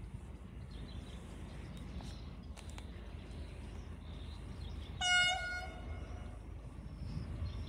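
KTMB diesel locomotive 26112 sounding its horn once, a short blast about five seconds in as the cement train approaches from a distance. Under it runs a steady low rumble.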